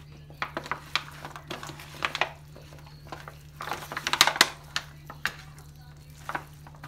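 Hands tossing raw, marinated chicken drumsticks in a disposable aluminium foil pan: irregular crinkling and rattling of the thin foil as the meat is turned, in scattered flurries, busiest about four seconds in.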